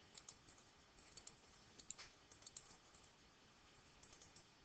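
Faint, irregular computer mouse clicks, some in quick pairs, over near silence: points being placed with GIMP's free-select (lasso) tool to cut out part of an image.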